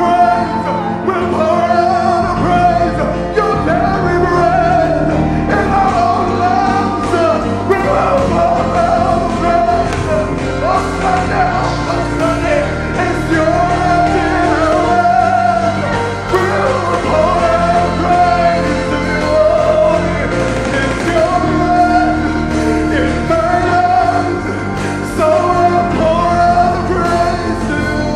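Live worship music: a male lead vocalist singing into a microphone, with backing singers and a band underneath, in repeated sung phrases over a steady bass.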